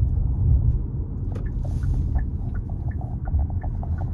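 Car driving over a rough, sandy road, heard from inside the cabin: a steady low rumble of tyres and road, with many small clicks and rattles, a few each second.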